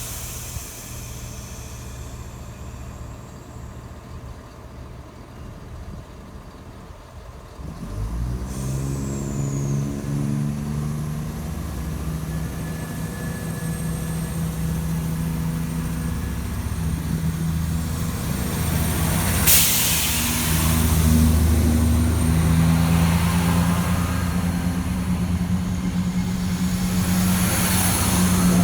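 Diesel train's engines: a short air hiss at the start, then from about eight seconds in the engine note builds and runs on steadily under power, with a sharp burst of air hiss about two-thirds of the way through.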